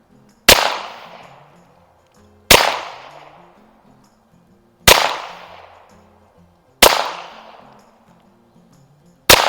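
AMT Lightning .22 LR semi-automatic target pistol firing five slow, deliberate shots about two seconds apart, each crack followed by a short echoing tail.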